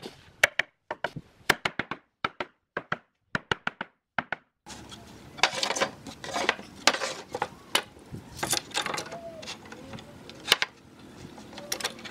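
Sharp taps and knocks of wood on wood while two glued wooden slabs are handled. From about four and a half seconds in, a steady background noise comes up with more knocks and clattering as the glued panel is set down on a wooden table and a steel bar clamp is fitted across it.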